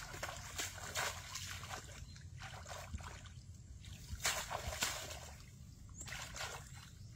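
Shallow water sloshing and splashing in irregular surges as someone wades through it and pushes a bamboo plunge basket fish trap down into it, the loudest splashes about four to five seconds in, over a steady low rumble.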